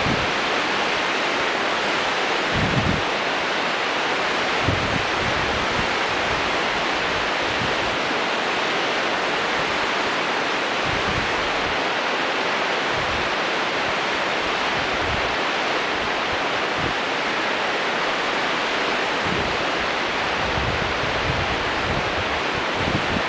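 Rio Grande rapids rushing steadily below the dangling camera, with short low gusts of wind buffeting the microphone now and then.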